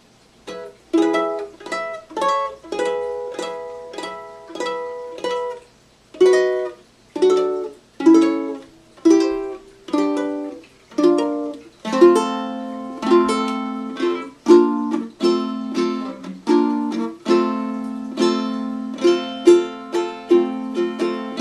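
Handmade tenor ukulele fingerpicked: single plucked notes and chords about once a second, then from about halfway through a quicker picked pattern over a ringing lower note. The notes ring out and sustain well.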